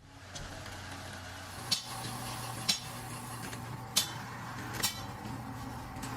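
Four sharp metal-on-metal clinks, roughly a second apart, from tools or parts being knocked during engine work, over a steady low hum.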